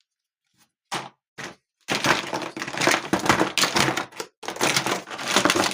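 Loose plastic Hot Wheels track pieces and parts knocking and clattering together as they are rummaged through in a box: two separate knocks, then a few seconds of dense clattering.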